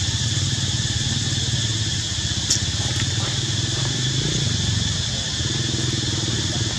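A small engine running steadily with a fast low pulse, under a steady high-pitched buzz; a single sharp click about two and a half seconds in.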